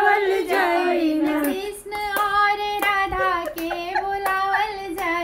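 A high voice singing a kajri folk song in long, bending held notes, with hand claps keeping time about twice a second.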